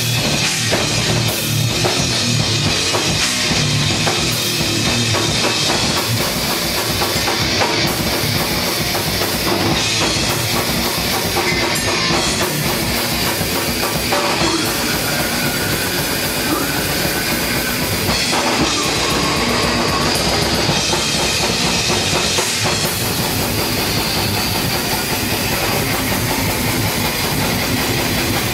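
Live heavy rock band playing: electric guitars over a drum kit, loud and unbroken, with fast, dense drumming.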